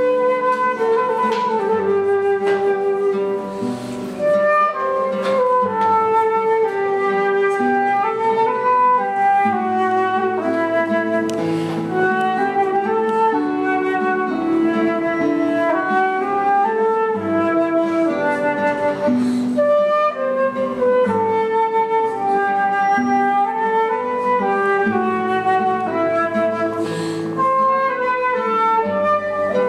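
Concert flute playing a melody over plucked classical guitar accompaniment, a live flute and guitar duet.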